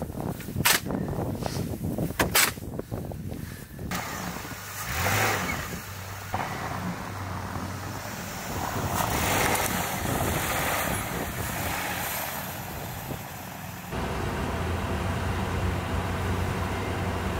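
A car driving, with a steady engine and road-noise hum. There are two or three sharp knocks in the first few seconds, and the sound changes abruptly about four, six and fourteen seconds in.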